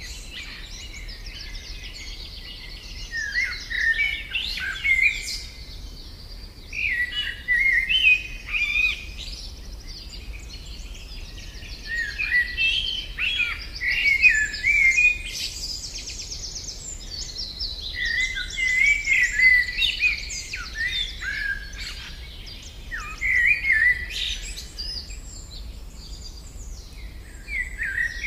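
Songbird singing a series of varied whistled phrases, each a couple of seconds long, with short pauses between them and rapid trills in some phrases.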